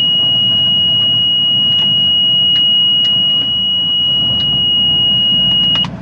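John Deere swather's cab warning buzzer sounding one continuous high-pitched tone over the just-started engine running, cutting off shortly before the end.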